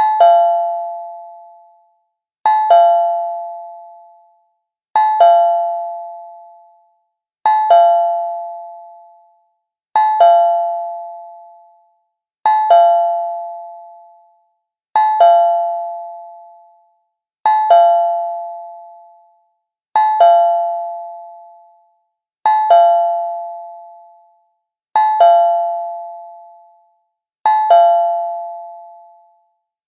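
Cartoon-style doorbell chime ringing a quick high-then-low ding-dong whose two notes ring out and fade over about two seconds, repeated evenly every two and a half seconds, about a dozen times.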